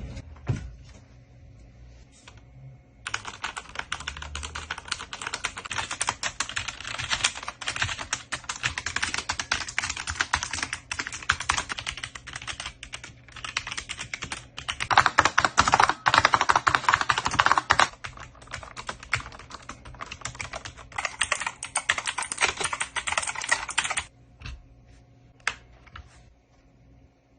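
Fast typing on computer keyboards: a few scattered key presses, then a dense run of rapid keystrokes for about twenty seconds that grows louder and deeper around the middle, ending in a few last isolated key presses.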